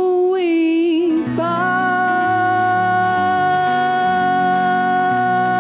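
Singing with a live band: a voice slides up onto the held word "vou" and, after a short break about a second in, holds one long steady note. Underneath, sustained keyboard and bass chords change slowly.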